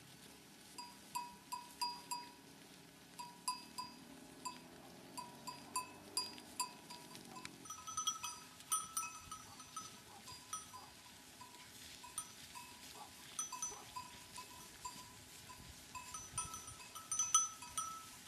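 Sheep bells clinking irregularly as a grazing flock moves about, at least two bells of different pitch, the higher one joining in about eight seconds in.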